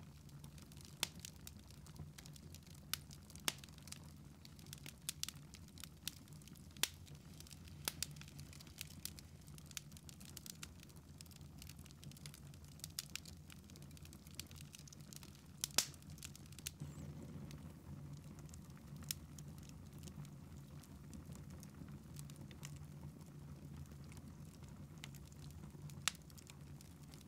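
Log fire in a fireplace crackling: irregular sharp pops, one louder about sixteen seconds in, over a low steady hum.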